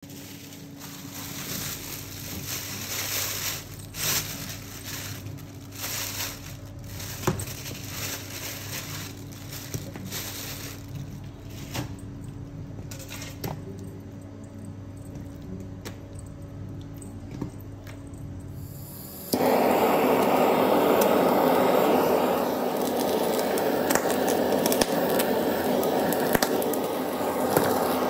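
Pork strips being handled in a stainless steel sink, with scattered clinks and knocks on the metal. About two-thirds of the way in, a hand-held butane blowtorch starts up with a sudden steady hiss and keeps burning, scorching the pork skin.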